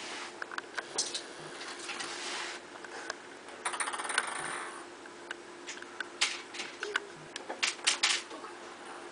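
A light plastic ping pong ball tapping and bouncing on a wooden tabletop as it is batted between a cat and a person: scattered sharp taps, with a fast run of small bounces about four seconds in.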